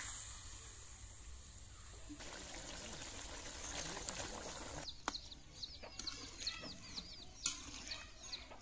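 Watery fish and spinach curry bubbling in an iron kadai over a wood fire, with a spatula clicking against the pan a few times. Birds chirp in the background during the second half.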